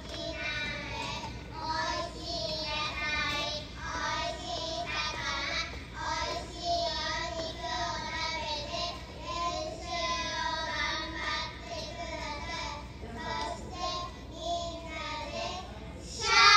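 Young children singing into microphones, their voices amplified, with musical accompaniment.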